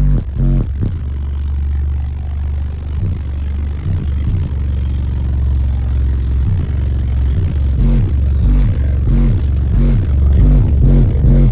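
Bass-heavy rap track played very loud through two Fi BTL N3 18-inch subwoofers in an SUV: a long held deep bass note, then a fast run of bass hits from about halfway.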